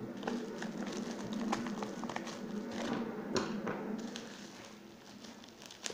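Bubble wrap around a new phone being handled on a wooden table: scattered light crinkles and taps over a steady low hum, growing quieter after about four seconds.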